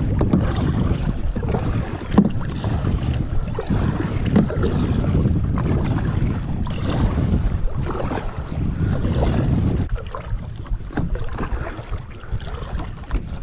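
Wind rumbling on the microphone while a double-bladed kayak paddle dips and splashes in choppy water, stroke after stroke. The wind noise eases about ten seconds in.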